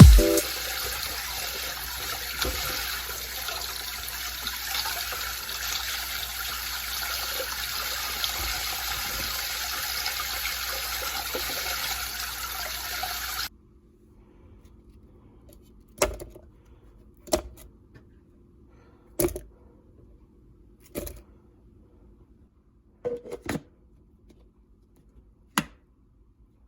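Water running steadily from a tap, then cutting off abruptly about halfway through; after it, a handful of light, scattered knocks and clicks.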